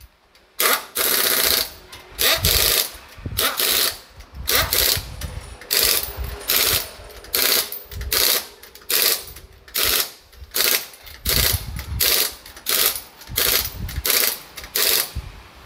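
Pneumatic impact wrench hammering on a car wheel's lug nuts in about twenty short bursts, one or two a second, with brief pauses between them.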